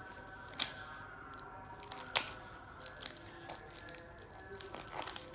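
Small cardboard toy-car box being picked and torn at by hand, with two sharp snaps, about half a second and two seconds in, and a few lighter rustling clicks near the end.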